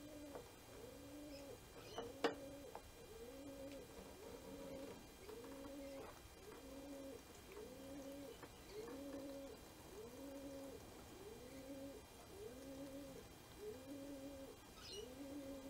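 A bird cooing faintly, the same short two-note call repeated steadily about every 0.8 seconds.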